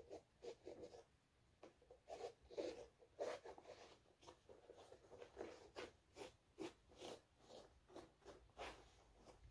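Cloth towel wiping a Nike Jordan 1 Low sneaker dry after washing: a quick, uneven run of short, faint rubbing strokes, two to three a second.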